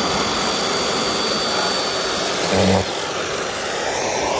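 Small chainsaw with a 10-inch bar running steadily as it cuts a burger-patty slice off a log of ground beef, with a thin high whine over the first half and a brief louder swell about two and a half seconds in.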